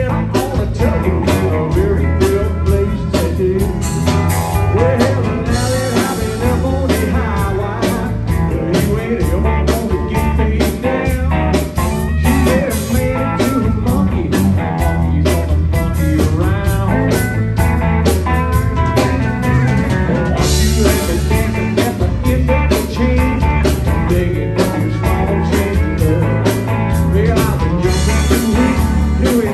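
A live country band playing: pedal steel guitar, acoustic and electric guitars and bass over a steady drum beat, with cymbal crashes swelling about six seconds in, around twenty seconds in and near the end.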